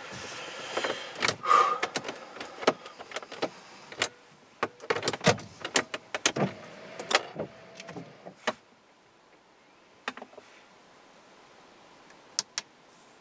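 A run of clicks, taps and rustling handling noise in a car's cabin, with a short whine about six seconds in that lasts just over a second. A few faint clicks follow near the end.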